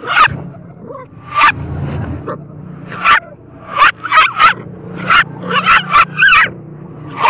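A dog barking at a monkey in about a dozen short, sharp barks, coming faster from about four seconds in.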